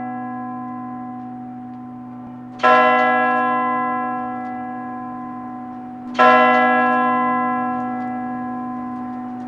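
A single church bell tolling slowly, struck twice about three and a half seconds apart. Each stroke rings on at the same pitch and fades gradually, and the ring of the stroke before is still dying away at the start.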